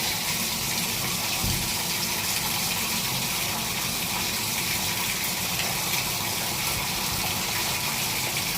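Shower water running steadily from a Glacier Bay shower valve turned as far toward hot as its newly adjusted limit stop allows.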